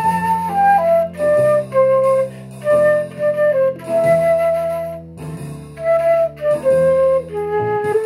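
Concert flute playing a slow melody of separate held notes in short phrases, with brief breaks between phrases, over a quieter, lower sustained accompaniment.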